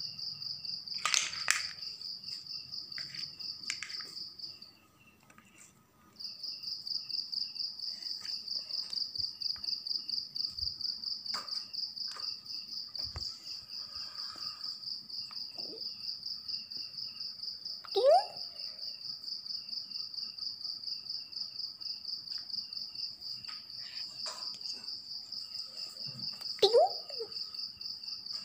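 Insect trilling: a steady, high, pulsing trill that breaks off for about a second and a half a few seconds in, then carries on. A brief clatter about a second in, and two short, loud rising squeaks, one just past the middle and one near the end.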